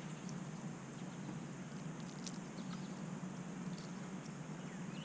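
Quiet creekside ambience: a steady low hum with a few faint, high bird chirps and a small click about two seconds in.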